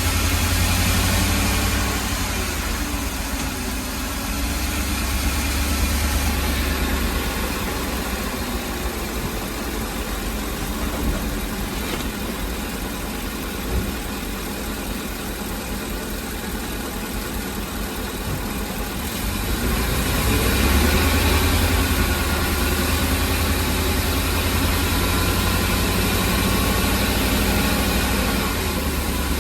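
Ford E-350 van engine idling, its level swelling and falling, with the shake that sets no misfire code.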